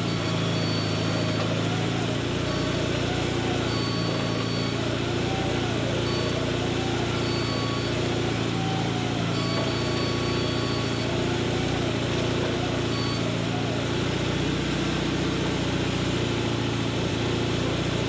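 Wood-Mizer portable band sawmill running, a steady engine sound with a fainter whine that rises and falls about once a second.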